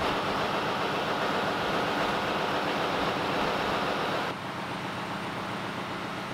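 Steady engine-room machinery noise with a low hum, dropping abruptly to a quieter steady drone about four seconds in.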